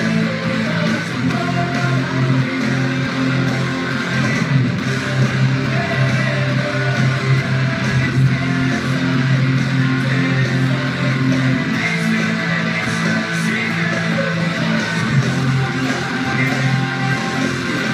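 Squier Stratocaster electric guitar through a Line 6 amp, strummed hard on low chords in a steady distorted alternative-metal rhythm.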